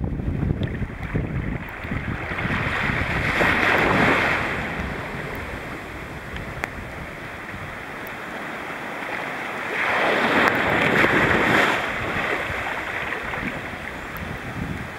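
Sea water rushing and splashing around a moving boat, swelling loudly twice, about three seconds in and again about ten seconds in, with wind buffeting the microphone.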